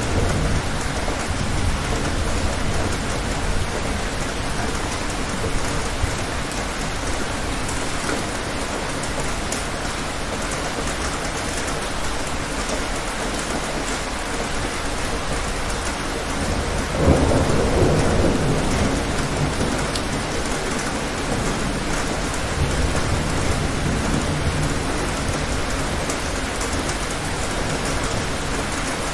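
Steady rain falling through a thunderstorm, with low rolling thunder; a louder thunderclap breaks a little past halfway and rumbles away over a few seconds.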